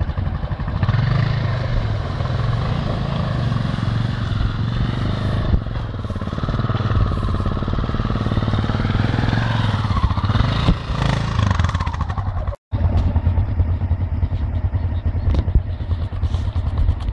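Large dual-sport motorcycle engines run at low speed, the throttle rising and falling as the bikes crawl over wet, rough ground and up a muddy bank. The sound cuts out for a moment about two-thirds of the way through.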